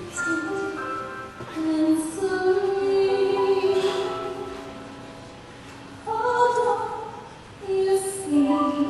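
A woman singing a slow stage-musical ballad with accompaniment, in long held notes. The singing is softer in the middle and swells again about six seconds in.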